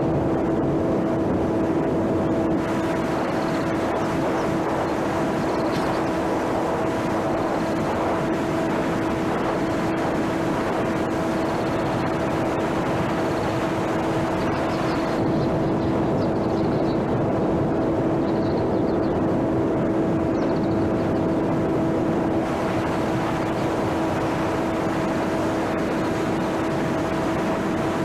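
Small electric RC airplane's brushless motor and propeller in flight, a steady whine at an unchanging pitch over a rush of wind noise.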